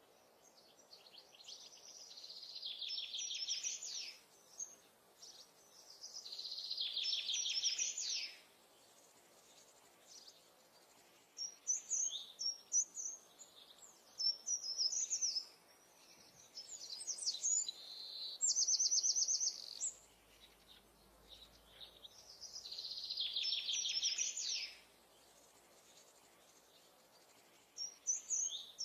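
Songbirds singing. One repeats a high, trilled phrase of two to three seconds every few seconds, with shorter chirps in between.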